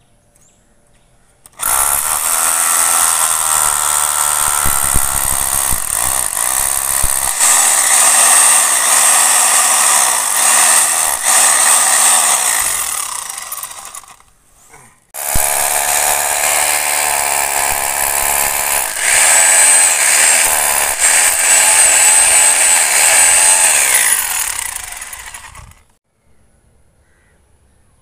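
Hammer drill boring into concrete in two long runs of about ten seconds each, with a short pause between, its pitch wavering as it works: drilling holes for polyurethane injection packers.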